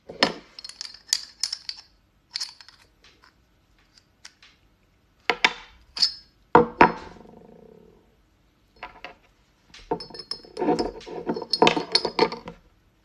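Metal scissors and a small glass mug handled on a wooden table: irregular clusters of sharp clicks and clinks, one of which rings on for about a second about halfway through.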